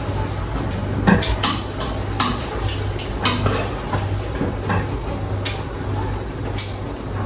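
A utensil clinking and scraping against a pot while stirring boiling pasta, with scattered sharp clinks every second or so.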